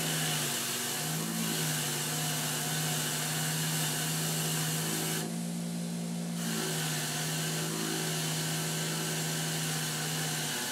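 Small Harbor Freight 5-inch bench grinder running with a steady motor hum, a nylon bristle wheel spinning on it. A hiss rides above the hum, dropping away for about a second around five seconds in.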